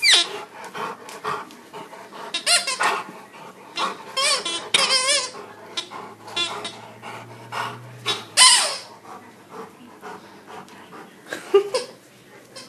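A rubber squeaky toy squeaked over and over as a Rottweiler bites and chews on it, in short high, wavering squeals a second or a few seconds apart, with small clicks and rustles of the toy being handled in between.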